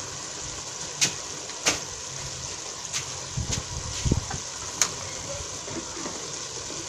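Pot of sweet potato leaves simmering on the fire: a steady hiss broken by sharp pops about once a second.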